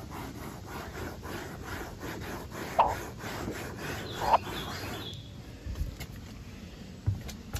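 Gloved hand rubbing back and forth over marine vinyl seat upholstery, about three strokes a second, with two brief squeaks; the rubbing stops about five seconds in.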